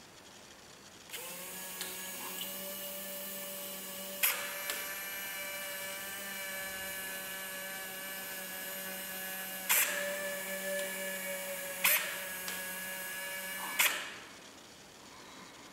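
A small DC motor on a Micro:bit-controlled toy boat starts about a second in and runs with a steady whine. It is punctuated by four sharp clicks, one of them as it stops near the end, from the relay switching as the app's direction buttons are tapped.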